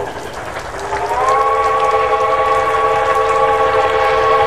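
Southern Pacific five-chime steam whistle on Sierra Railway locomotive No. 34 blowing. One blast stops right at the start, and after a short gap a long second blast begins, sliding up in pitch about a second in and then held as a steady chord of several notes.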